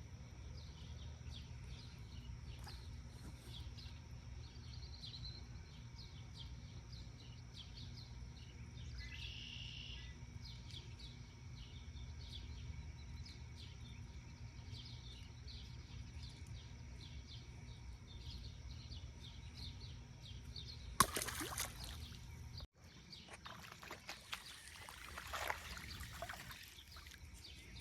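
Outdoor pond ambience: a steady low rumble with many short bird chirps. In the last few seconds water sloshes and splashes as a small fish is brought in.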